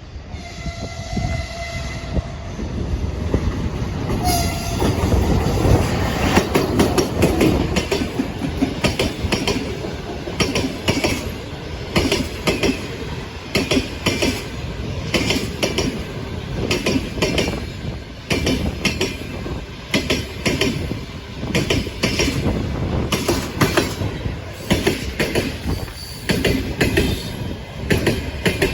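EP1M AC electric locomotive sounds its horn for about a second and a half, with a short second blast about four seconds in. The locomotive and its passenger coaches then roll past, wheels clattering rhythmically over the rail joints, loudest a few seconds after the horn.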